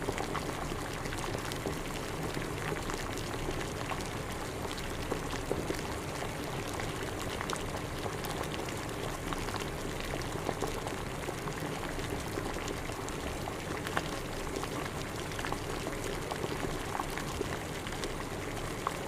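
Water at a rolling boil, bubbling and popping steadily.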